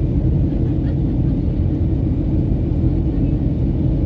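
Steady low rumble of a jet airliner in flight, heard from inside the cabin: engine and airflow noise.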